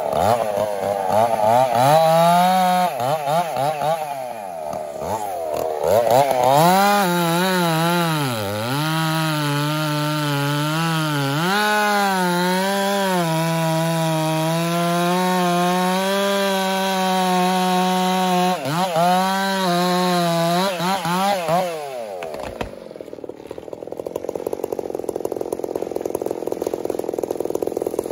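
Stihl chainsaw cutting through a standing pine trunk to fell it, its engine note wavering under load at first, then holding a steady, lower pitch through a long cut. Near the end the engine drops off sharply as the cut finishes.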